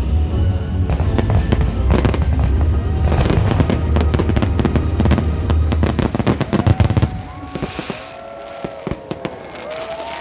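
Fireworks bursting and crackling in rapid, dense cracks over a steady low rumble, with music playing. The barrage stops about seven seconds in, leaving a few scattered pops.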